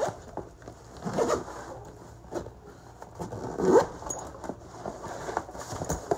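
Zipper on a fabric lunch bag being pulled in several short strokes, the loudest about halfway through, with the bag's fabric rustling as it is handled.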